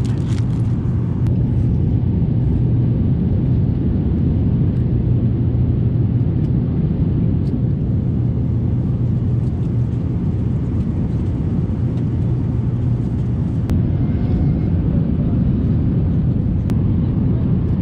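Steady low rumble of engines and airflow heard inside an Airbus A350's passenger cabin, with a constant low hum underneath.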